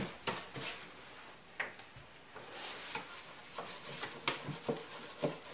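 Paintbrush working paint onto the plywood inside a box: quiet, soft scrubbing brush strokes, with a few light taps against the wood.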